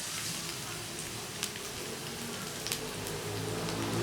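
Chicken wings frying in a pan: a steady sizzle with scattered pops and crackles. A low, steady hum comes in about halfway through and grows louder.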